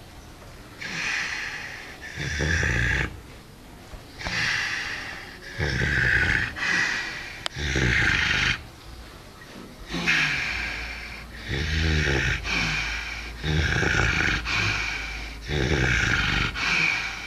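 Pig snoring: a steady run of loud, rough breaths, one every second or two, some with a low rattling grunt underneath.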